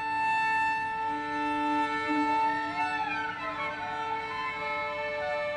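Music played on bowed strings: long held notes, with a sliding phrase about three seconds in.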